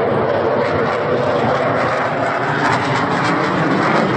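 Military jet aircraft flying over, its engine noise a steady rushing drone that slowly grows louder.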